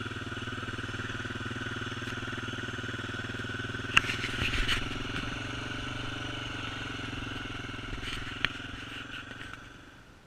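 Adventure motorcycle engine running steadily, with a sharp click about four seconds in and another near the end. The engine sound dies away just before the end.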